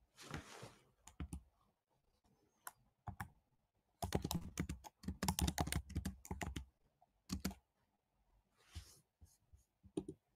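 Irregular clicks and soft knocks of handling at a table, picked up by a table microphone. A short rustle comes at the start, and there is a dense run of clicks from about four seconds in until nearly seven seconds.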